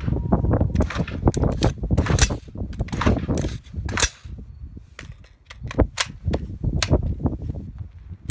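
Gunfire at an outdoor range: about a dozen sharp shots at irregular spacing, sometimes two or three within a second, over a low wind rumble on the microphone.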